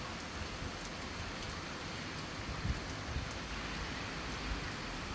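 Steady rain falling: an even hiss with scattered faint drop ticks and a low rumble underneath.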